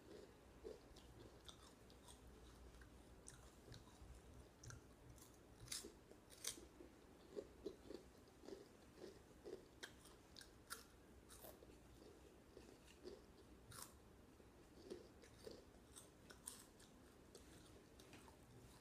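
Faint chewing and crunching of hot Cheetos: irregular crisp crunches as the snacks are bitten and chewed, more of them in the middle stretch.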